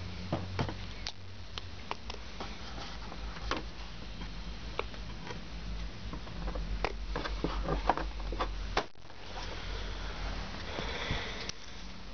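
Irregular light clicks and knocks of objects being handled, over a low steady hum.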